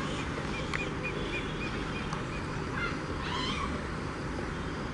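Passenger train rolling away with a steady low rumble. Over it a bird calls a quick series of short chirps, about four a second, in the first half, and a longer wavering call comes about three seconds in.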